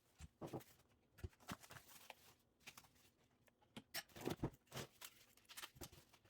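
Faint, scattered clicks, knocks and rustles of bike parts and packaging being handled and unbundled, with a denser run of knocks about four seconds in.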